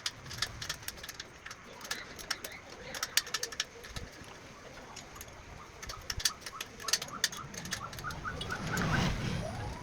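Spanners working a motorcycle exhaust mounting bolt loose: a quick run of light metallic clicks and clinks, then a louder, squeaky rising sound near the end as the bolt comes free.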